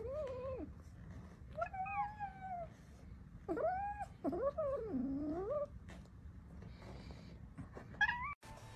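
A golden kitten meowing, a series of drawn-out, wavering meows that rise and fall in pitch: four in the first six seconds and a short one near the end.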